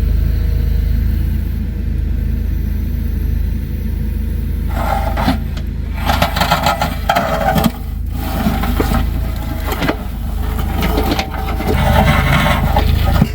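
A heavy machine's engine running with a steady low rumble. From about five seconds in, irregular scraping and knocking come over it.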